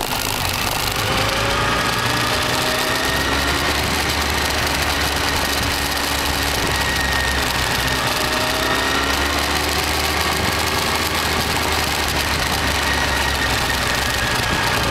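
Motorcycle engine running at low road speed, its pitch rising and falling gently with the throttle, under steady wind noise on the microphone.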